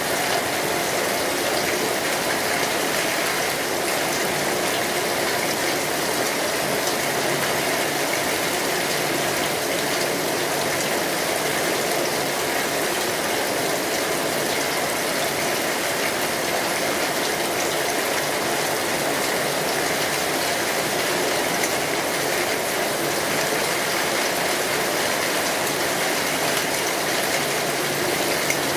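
Steady rain falling on an umbrella overhead: an even, unbroken hiss with faint scattered drop ticks.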